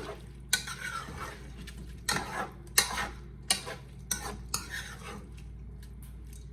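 Metal spoon scraping and knocking against a pot, stirring rice through browned chicken, in about eight sharp strokes that stop about five seconds in. A steady low hum sits beneath.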